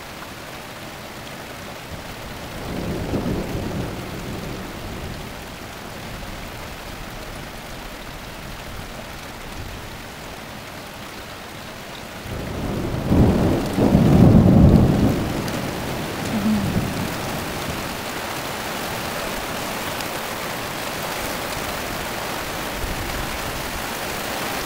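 Steady rain falling and running into the gutters, with a low rumble of thunder about three seconds in. About halfway through a louder, longer peal of thunder rolls for a few seconds, then the rain carries on.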